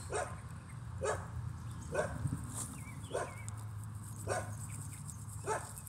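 A large dog making short vocal sounds about once a second while its mouth is held open and its teeth are brushed, a procedure it dislikes but puts up with.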